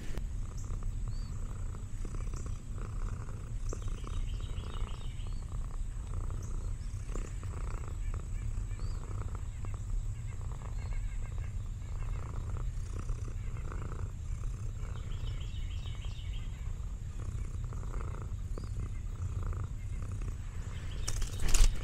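Orange tabby cat purring close to the microphone: a low, steady purr that swells in regular pulses.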